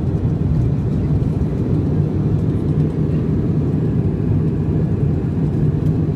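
Steady cabin drone of a Dash 8 Q400's turboprop engines and propellers, heard from inside the cabin during the landing roll. The low hum holds even, with no sudden knocks or changes.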